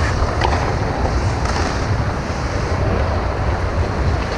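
Ice-rink ambience during a hockey game: a steady rushing, rumbling noise with a couple of faint clicks about half a second and a second and a half in.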